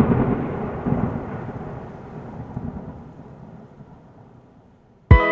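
Rolling thunder-like rumble with a crackling texture, dying away over about five seconds. Just before the end a music track comes in with a loud hit and sustained chords.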